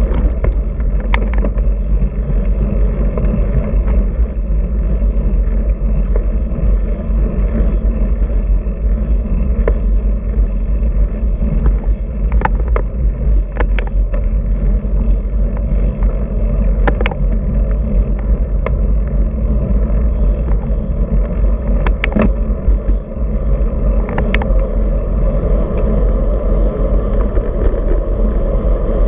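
Wind buffeting a handlebar-mounted camera's microphone on a moving road bike, together with tyre and road rumble from the asphalt: a steady low rumble. About a dozen sharp clicks and ticks are scattered through it.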